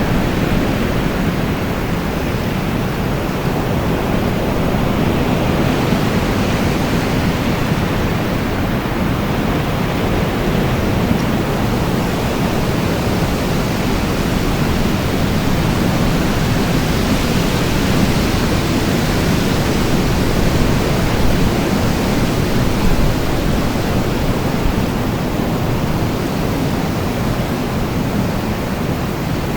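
Steady wind sound effect: a dense, continuous rush heaviest in the low end, swelling and easing slowly without gusting hard.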